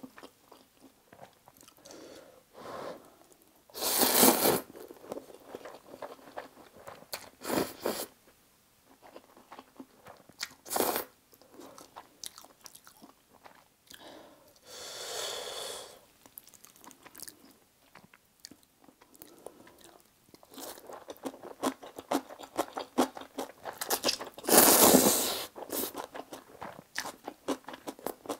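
Close-miked eating of spicy stir-fried instant noodles: several loud slurps of noodles spread through, with wet chewing and small mouth clicks between them.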